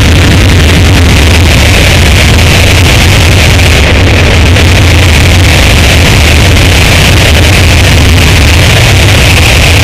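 Harsh noise music: a dense, heavily distorted wall of noise over a steady heavy low drone, held at full loudness without a break.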